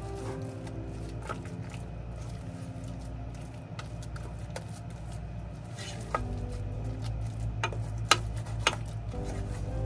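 Soft background music of held notes over a low hum, with several sharp clicks and taps of kitchen utensils against dishes or a pan scattered through, most of them in the second half.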